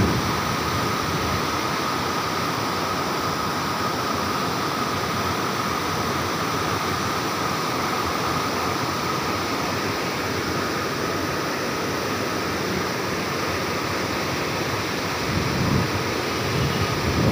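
Steady rush of river water pouring through the gates of a barrage, a constant even roar with a few low buffets near the end.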